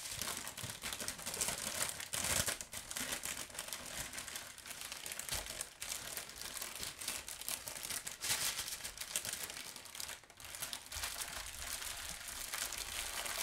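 Clear plastic baggies of diamond painting drills crinkling as they are handled and packed together, a continuous crackling with many small rustles.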